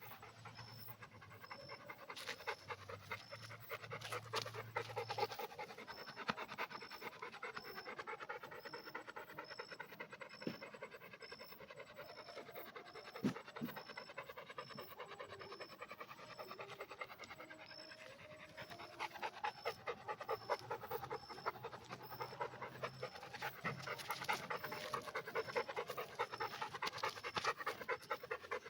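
Pit bull panting fast and steadily, with breaths coming several times a second; the panting grows louder in the last third.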